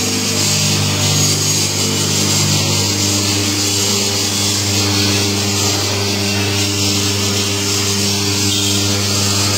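Electric motor of a coconut milk extractor running steadily, a constant hum with a high hiss over it; its tone shifts slightly about three seconds in.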